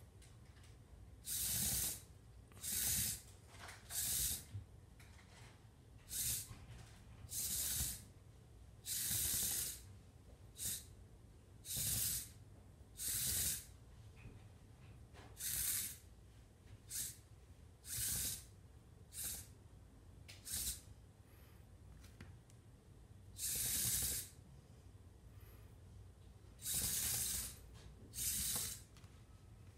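Small geared DC motors of a mecanum-wheel robot car running in short, irregularly spaced bursts, each up to about a second long, a hissing whir with the wheels rolling on a wooden floor as the car is jogged about.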